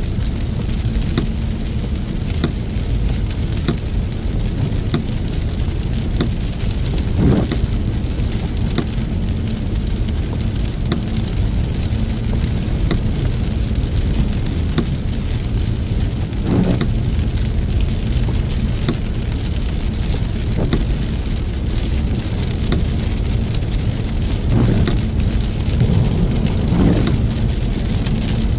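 Heavy rain on a moving car, over a steady low rumble from the drive, with a few brief louder swells now and then.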